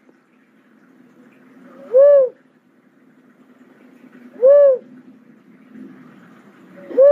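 A cuckoo-dove calling: a single low note that slides up and back down in pitch, repeated about every two and a half seconds. Two full notes are heard, and a third begins at the very end.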